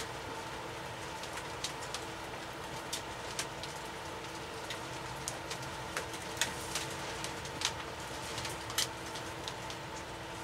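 Skutt Prodigy electric potter's wheel running with a steady hum, with scattered light clicks and ticks on top.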